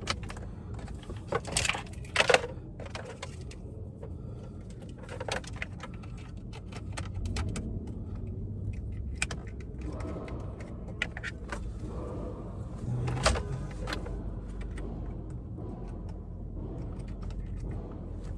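Wiring-harness connectors and plastic trim being handled and plugged in: scattered clicks, rattles and a few sharper knocks over a steady low hum.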